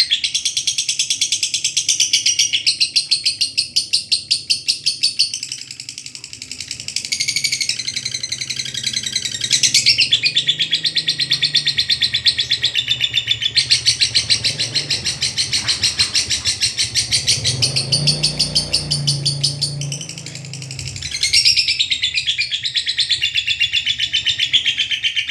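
Lovebird giving its long 'ngekek' song: a rapid chattering run of high, sharp notes repeated many times a second. The runs go on for several seconds at a stretch, easing briefly about six seconds in and again about twenty seconds in.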